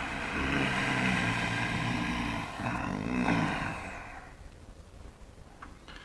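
A man's long, low groan of exasperation, breaking once and fading out about four seconds in.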